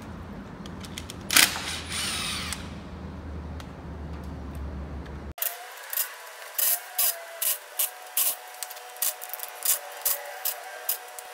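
Cordless drill run in short trigger bursts: one longer run about a second and a half in, then a quick series of brief bursts, about two a second, through the second half.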